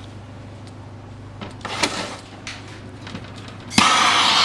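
A few metal clinks and clanks of tools on the clutch, then near the end a torch lights with a sharp pop and goes on hissing steadily, heating the clutch-arm set screws to loosen them.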